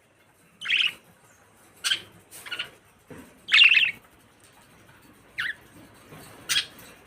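Pet budgerigars giving short, separate chirping calls, about six in all at irregular gaps, the loudest one a little past the middle.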